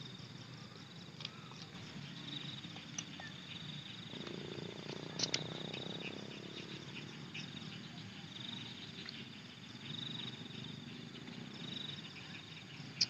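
Insects chirring in a steady high trill that swells and fades several times, over quiet chewing and mouth sounds of someone eating by hand, with a sharp click about five seconds in and another near the end.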